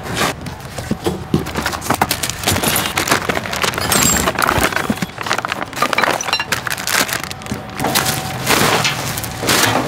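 Plastic packaging crinkling and crackling in a dense run of sharp, irregular snaps as stretch film is torn off a motorcycle shipping crate and bagged parts are handled.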